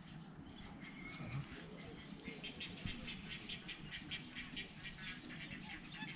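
Birds chirping and chattering: a short whistled note about a second in, then a fast run of short high chirps from about two seconds in.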